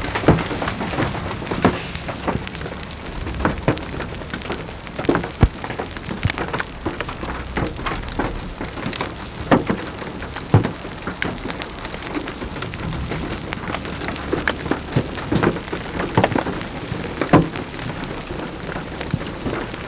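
Rain on a vehicle, heard from inside: a steady hiss with sharp, irregular hits of drops striking the glass and body every second or so.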